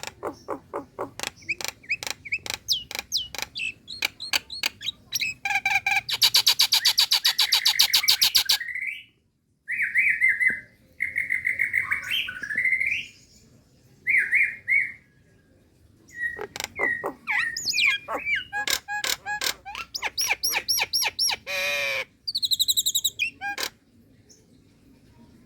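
A Nias hill myna, the female calling for a male, gives a varied series. It opens with rapid sharp clicking notes, then a loud fast rattle, then several clear whistled notes, then more clicks and a harsh note. It ends with a short run of high whistles.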